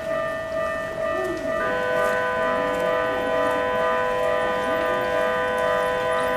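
Japanese railway level-crossing warning bells ringing: one electronic alarm sounds steadily, and about one and a half seconds in a second alarm at different pitches joins it, the two ringing together.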